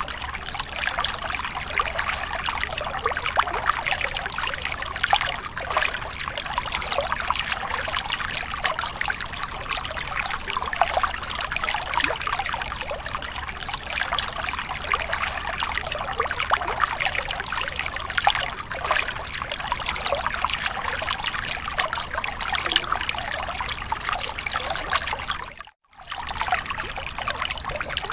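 A thin trickle of water running steadily over rocks into a small pool, cutting out for a fraction of a second near the end.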